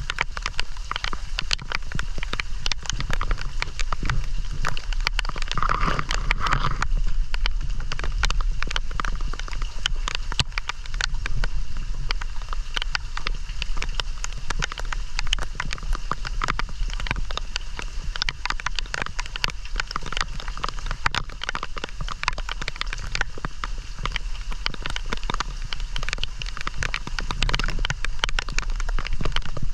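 Heavy rain falling, countless drops striking hard surfaces in a dense, steady patter, over a constant low rumble.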